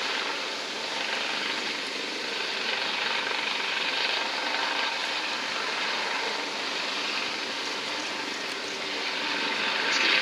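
US Coast Guard HH-65 Dolphin helicopter hovering low over the sea: steady turbine and rotor noise that swells a little near the end.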